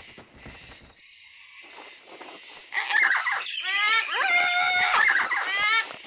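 Cockatoos calling: a run of harsh, pitched squawks that begins about halfway in.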